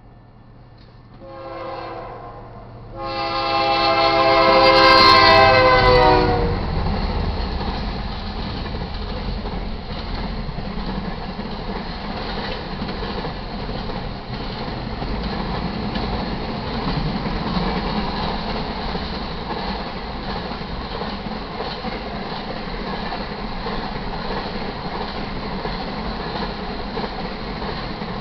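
Diesel freight locomotive horn on a GE C44-9W: a short blast, then a longer, louder one whose pitch drops as it ends. The train then passes close by, a steady heavy rumble of the locomotives followed by the rolling and clatter of intermodal cars.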